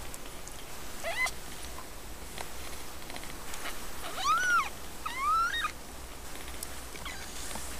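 Siamese kittens about two weeks old mewing while nursing: a short squeak about a second in, then two high-pitched rising-and-falling mews around the middle.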